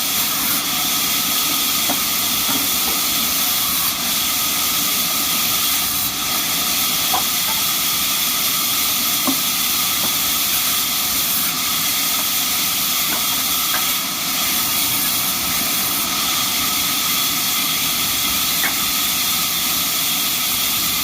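Steady, even hiss of a running sawmill machine, with a few faint ticks.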